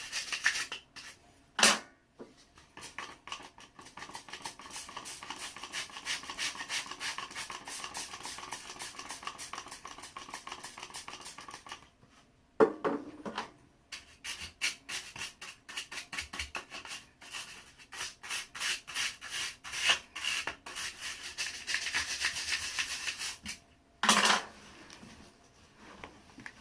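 A brush scrubbing rapidly back and forth between the blades of a car heater blower motor's fan wheel, scraping grime off, in long runs of quick strokes with short pauses. A few louder knocks come from the part being handled, about 2 s in, midway and near the end.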